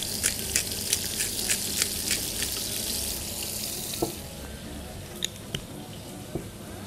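Oil sizzling in a non-stick frying pan as chopped carrots, garlic and chilli gently fry, a steady hiss with scattered sharp crackles that eases after about three seconds.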